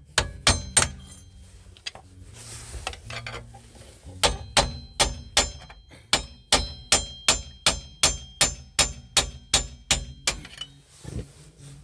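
Hammer blows on a car's steel wheel hub assembly, each one ringing metallically. Three quick blows come first, then a pause of about three seconds, then a steady run of about three blows a second.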